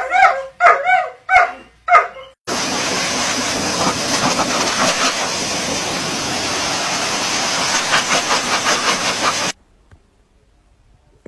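A dog yipping and barking in short calls that rise and fall in pitch. A couple of seconds in, a loud, even hiss starts abruptly, runs for about seven seconds and cuts off suddenly.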